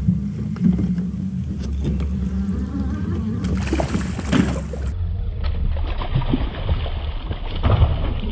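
A hooked bass splashing at the water's surface beside the boat, with brief bursts of thrashing, over a steady low rumble.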